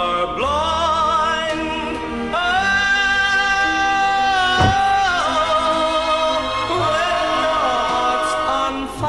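Background music with a singer holding long, slightly wavering notes over the accompaniment.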